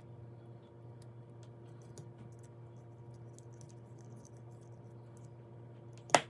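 Light scattered clicks of tiny screws, metal knife parts and a small screwdriver bit being handled during reassembly, with one sharp click about six seconds in. A steady low hum runs underneath.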